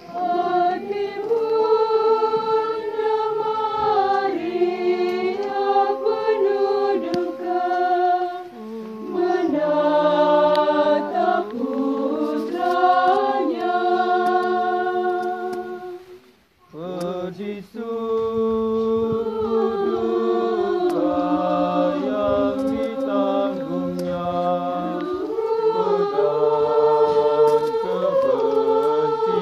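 A choir singing slowly in long held notes, several voices together, with a short break about halfway through.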